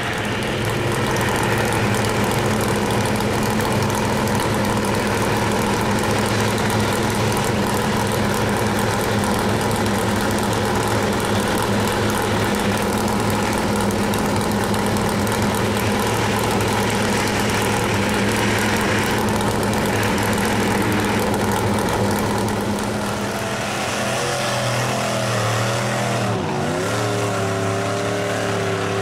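Lifted pickup mud truck's engine running hard at high revs, a steady drone as the truck churns through deep mud. Over the last few seconds the pitch wavers up and down as the throttle is worked.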